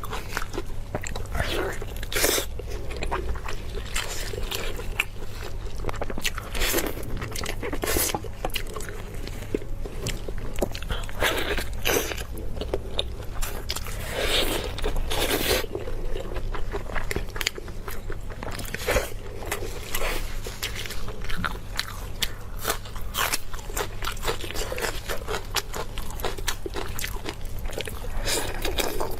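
Close-up eating sounds: repeated biting and chewing with many short crunches and wet clicks.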